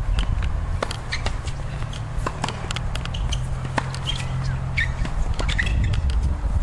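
Tennis rally on a hard court: sharp pops of racquets striking the ball, over a steady low rumble, with a few short high squeaks about four to five seconds in.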